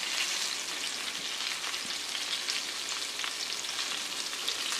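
Flour-dusted herrings shallow-frying in hot oil in a wide pan: a steady sizzle with small scattered crackles. The fish are late in frying, browned and nearly crisp.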